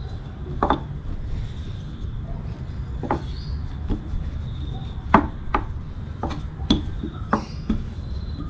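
Wooden rolling pin rolling back and forth over naan dough on a wooden board: a low steady rumble with about nine sharp wooden knocks at uneven intervals as the pin strikes the board, the loudest about five seconds in.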